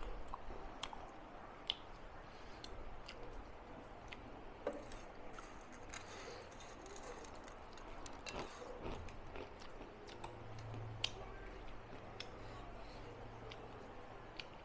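Faint chewing and eating sounds, with scattered small sharp clicks and taps.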